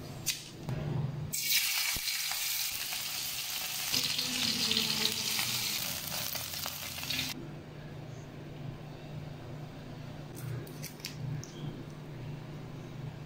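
Pandan-leaf-wrapped prawn parcels shallow-frying in hot oil: a dense sizzle that starts abruptly a little over a second in and cuts off about six seconds later. A sharp snip of scissors comes just before it, and a few light handling clicks follow later.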